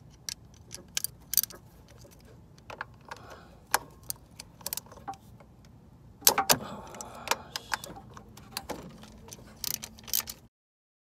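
Irregular metallic clicks and clinks of a socket wrench with a long extension working on the bolts of a car's A/C compressor, with a denser clatter of metal about six seconds in. The sound cuts off near the end.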